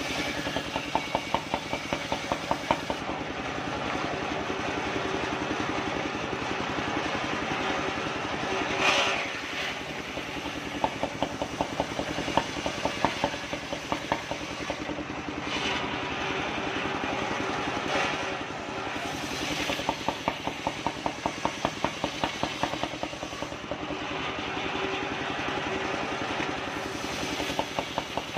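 Engine-driven circular sawmill running, its large disc blade ripping a kapok log lengthwise into boards. The engine's steady drone carries a sharper rattle from the blade in the wood that comes and goes as the log is pushed through.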